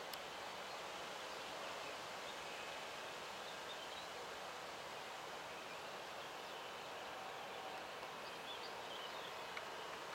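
Faint outdoor ambience: a steady hiss of air and rustling trees, with a few faint bird chirps around four seconds in and again near the end.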